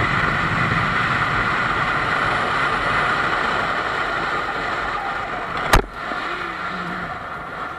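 Steady road and engine noise of a moving car as picked up by a dashcam, with a single sharp bang or click near the end.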